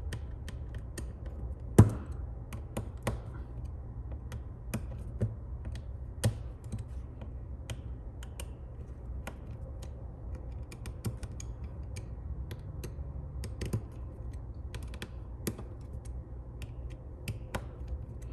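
Irregular small clicks and taps of a precision screwdriver working on a phone's tiny screws, with one louder click about two seconds in, over a steady low hum.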